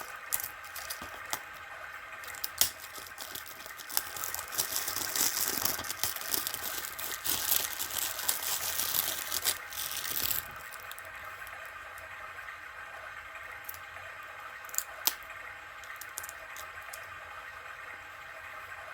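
Plastic shrink wrap being torn and peeled off a DVD case: crinkling and tearing with scattered clicks, densest from about four to ten seconds, where it stops suddenly, then lighter handling with a few sharp clicks.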